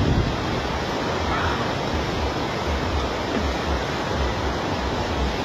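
Steady rushing of a swollen river in flood, with wind buffeting the microphone in low gusts.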